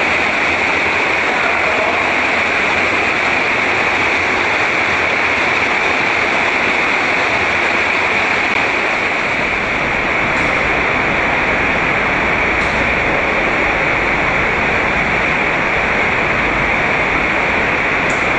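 Underground stream cascading through a cave passage: a steady, loud rush of falling water. A deeper rumble fills in about halfway through.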